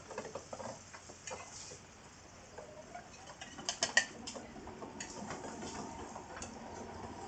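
Metal spatulas scraping and tapping on a steel griddle, then a spatula clinking against a small metal plate as grilled offal is scooped onto it, with a quick run of clinks about four seconds in.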